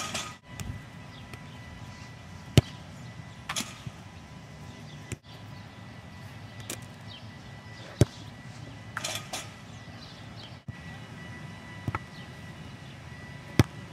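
Soccer ball struck hard by a foot, four sharp single kicks a few seconds apart, with faint distant voices between them.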